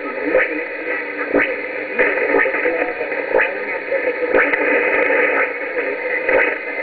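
Weak long-distance shortwave signal on 4865 kHz heard through a receiver: a steady band of hiss and static with short clicks about once a second, the station's programme audio faint and buried in the noise.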